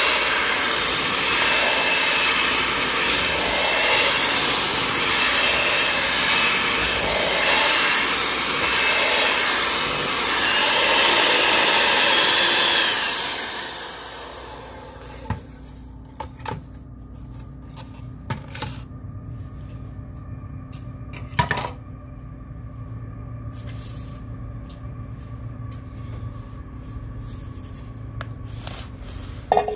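Electric mixer running steadily, its tone rising and falling about every second or so, then switched off about halfway through. After it a low hum remains, with a few light clicks and a sharp knock near the end.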